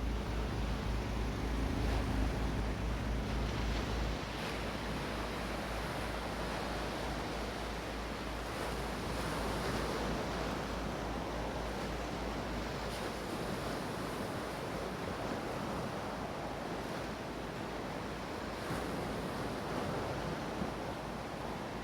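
Steady wind and sea-water noise, with wind buffeting the microphone; a heavier low rumble underneath eases off about four seconds in.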